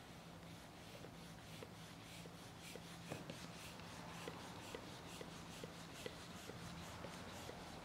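Sand shifting and crumbling against a pink balloon half-buried in it: faint scratchy rustling with small ticks a few times a second, over a low steady hum.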